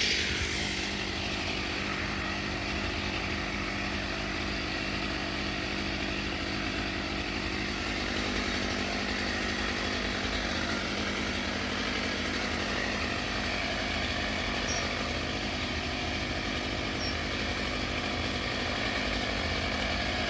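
An engine running steadily at one constant speed, without revving.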